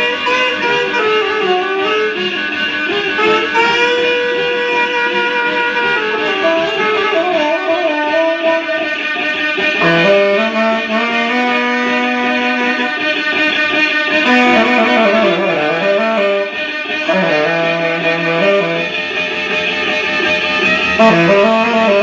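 A saxophone and a violin playing a live duet, with long held notes and winding melodic lines.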